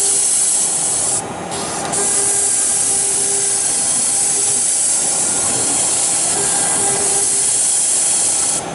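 AKM1325 CNC router's spindle and bit cutting acrylic sheet: a loud, steady hissing cut. It eases off briefly about a second in and again near the end.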